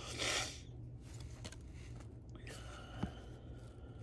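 Quiet handling of a stack of football trading cards being flipped through by hand: a brief swish at the start and a single small tap about three seconds in.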